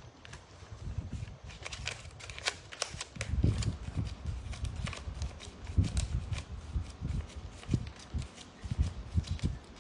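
Rustling with many irregular sharp clicks and dull low bumps, of something being handled, growing busier about three seconds in.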